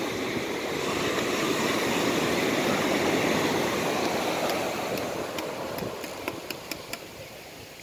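Sea surf: a wave rushes up the sand, swelling over the first few seconds and then fading away, with a few faint ticks as it draws back.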